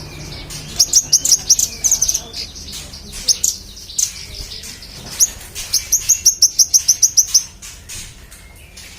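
Manggaran songbird singing vigorously: a quick string of sharp, high chirps and whistles, then near the end a fast run of about eight notes a second.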